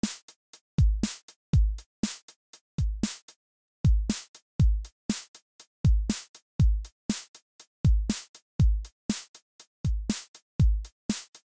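Electronic drum-machine beat as background music: deep kick drums that drop in pitch, with crisp high hat-like ticks between them, in a steady rhythm with no melody.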